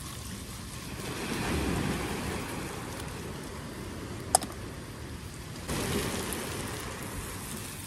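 Diced potatoes and onion sizzling in butter and oil in a frying pan on a camping gas stove. The sizzle swells a second or two in and again suddenly near six seconds as the pan is stirred and tossed. There is a single sharp tap just past four seconds.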